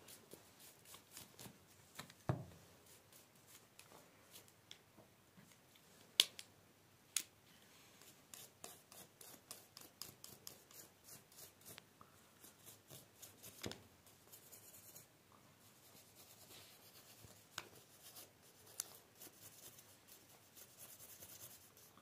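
Faint, rapid back-and-forth scrubbing of a toothbrush on a dismantled shotgun part, with a few sharper clicks.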